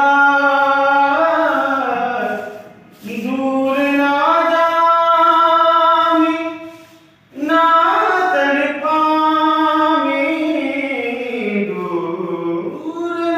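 A solo voice singing a song unaccompanied, in long drawn-out notes. The singing breaks into three phrases, with breaths about 3 and 7 seconds in.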